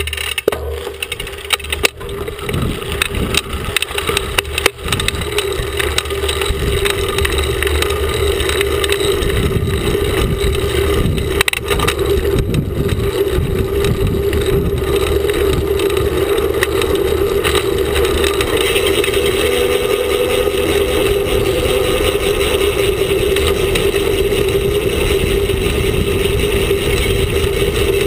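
Mountain bike riding on a road, heard from a camera on the front fork: the knobby front tyre hums steadily as it rolls, over wind rumble on the microphone. Clicks and rattles in the first few seconds as it picks up speed, then a steady loud run.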